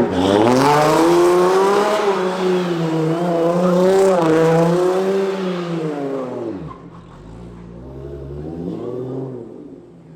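Audi B8.5 S4's supercharged 3.0-litre V6 accelerating hard. The pitch dips at a gear change right at the start, climbs and holds, then falls away about six and a half seconds in as the throttle comes off, with a shorter rise and fall near the end.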